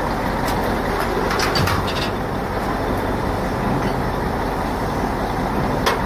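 Engine of a truck-mounted crane running steadily while a transformer hangs from its hook, with a few short knocks, the loudest near the end.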